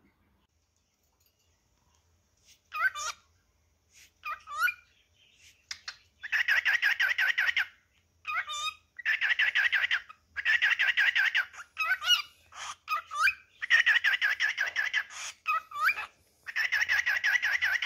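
Male cockatiel singing. After a quiet first two seconds come short rising whistles, then long runs of rapid, pulsing chatter alternating with more short whistles.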